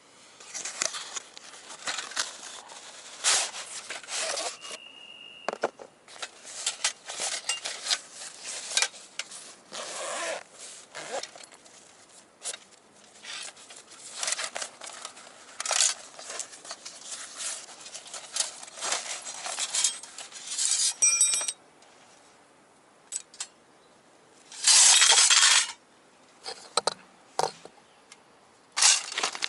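Thin stainless-steel panels of a folding box stove being handled and fitted together: irregular clinks, scrapes and rubs. One strike rings briefly about two-thirds of the way in, and a loud rasp of about a second comes near the end.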